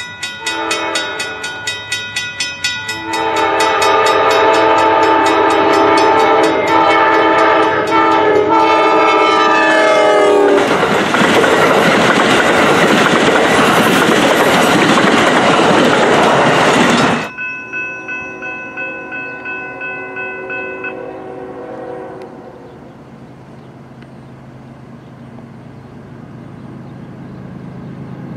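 Grade-crossing warning bell ringing at about two strokes a second. An Amtrak P42DC passenger locomotive sounds its horn for the crossing, the horn's pitch dropping as it reaches the crossing. The train then rushes past with wheels clattering over the rails, and the sound cuts off abruptly to another crossing's bell ringing, then a low, slowly growing rumble.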